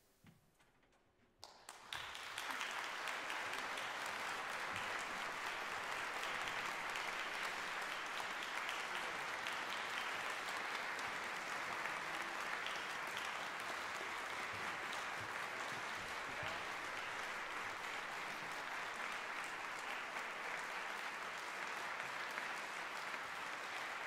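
A brief hush, then audience applause in a concert hall starting abruptly about a second and a half in and going on steadily.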